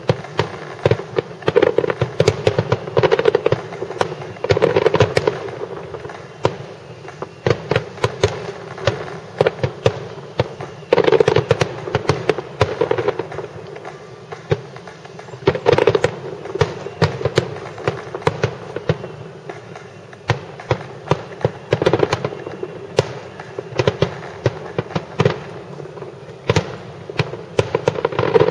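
Aerial firework shells bursting in rapid succession: a continuous barrage of bangs, several a second, with louder clusters of booms every few seconds.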